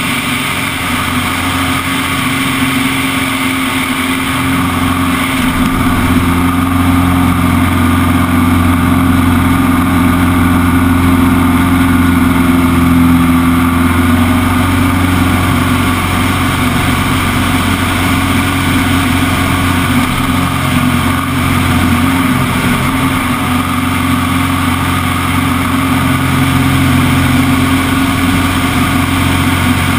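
Extra 200's four-cylinder Lycoming engine and propeller running steadily in flight, heard from inside the cockpit. The engine note grows a little louder and shifts slightly in pitch about five seconds in.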